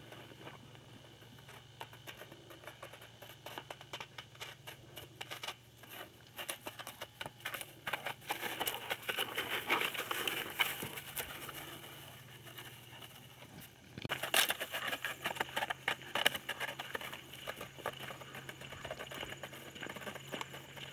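Dry leaves and twigs crackling and a stick scraping as a rough collie paws and chews at a log. The crackling swells in the middle, and there is a sharp crack about two-thirds of the way through.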